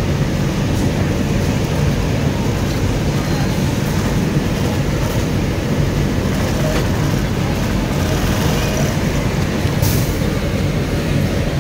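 Jack 58450B double-needle industrial sewing machine running, stitching a tape onto fabric, heard as a steady low machine hum.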